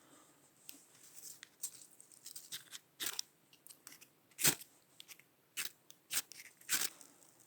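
Dry sticks and kindling snapping and crackling as a small fire is built: about a dozen irregular sharp snaps and crunches, the loudest about halfway through.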